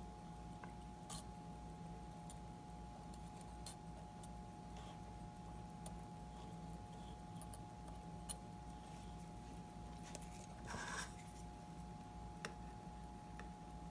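Faint, scattered clicks and light taps of small watchmaker's tools handling a Seiko wristwatch during servicing, with a brief rustle about ten seconds in, over a steady electrical hum.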